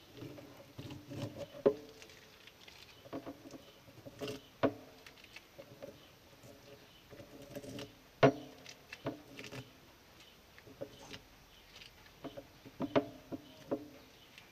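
Irregular small taps, clicks and scrapes from hands working on metal tin snips on a wooden table, picking tape off the painted blades, with a few sharper knocks, the loudest about eight seconds in.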